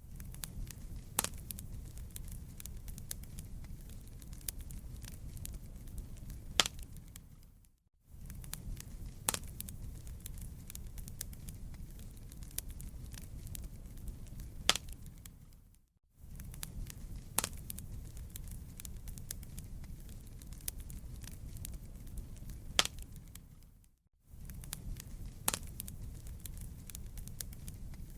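Wood fire crackling, with sharp pops over a steady low rumble. Several loud pops stand out, and the sound fades briefly to silence and back about every eight seconds.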